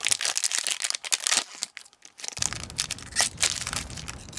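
Foil wrapper of a Pokémon trading card booster pack being torn open and crinkled by hand, in a quick run of crackling rips, as the cards are pulled out.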